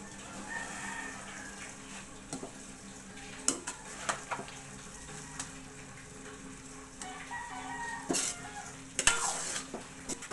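Spaghetti in sauce sizzling in a stainless steel wok, with metal tongs and a ladle knocking and scraping against the pan as the noodles are tossed. A rooster crows twice in the background.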